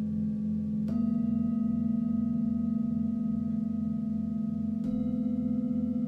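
Singing bowls ringing with long sustained tones and a slow wavering; a bowl is struck about a second in and another near the end, each adding a new note over the ones still sounding.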